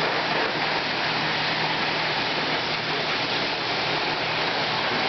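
Model train running on its track layout: a steady rushing rattle of wheels and motor with a faint low hum, holding an even level throughout.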